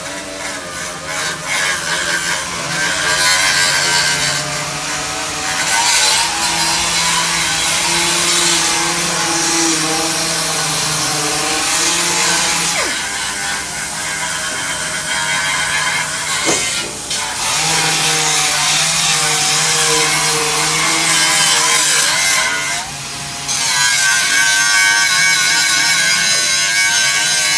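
A power tool working on a truck cab's thin sheet steel, running loud and steady with a few brief breaks.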